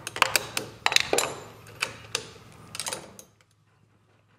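Metal clicking and clinking of a wrench working a car battery's terminal clamp as it is loosened: a run of irregular sharp clicks that stops about three seconds in.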